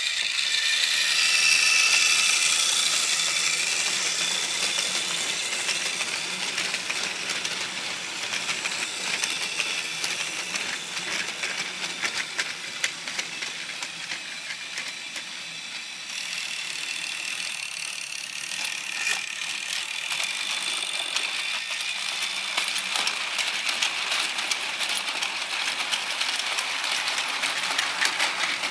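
Plarail toy E1 Series MAX Shinkansen running on plastic track: the small battery motor and gearbox whining steadily, with fast clicking and rattling of the wheels over the track joints. The sound changes suddenly about halfway through.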